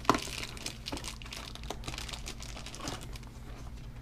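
Keyboard packaging being handled: cardboard and plastic rustling and crinkling, with many small clicks and a sharp knock right at the start.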